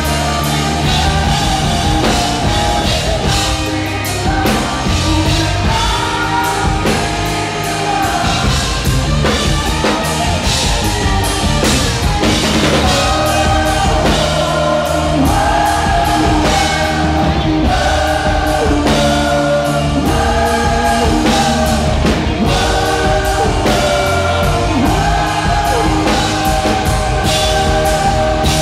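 Live rock band performing loudly with a male lead singer, his sung lines held over a steady drum kit, heard from the crowd close to the stage.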